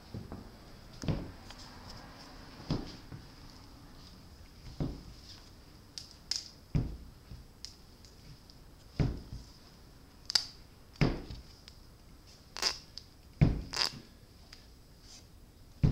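Irregular heavy thuds and scuffs of booted feet and a body moving on a hard floor, about a dozen spaced unevenly, the loudest near the end. A faint steady high whine runs underneath.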